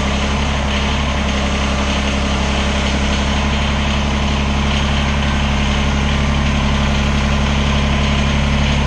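Kubota BX23S compact tractor's three-cylinder diesel engine running steadily at low speed while the tractor backs under the backhoe's mounting pins.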